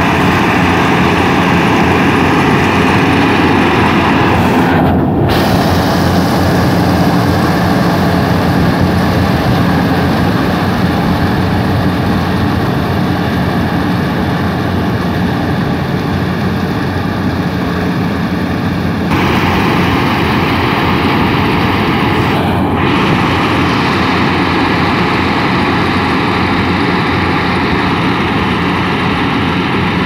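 Yanmar AW70 rice combine harvester running steadily and loud, its diesel engine and machinery under load as it cuts and threshes lodged, fallen rice.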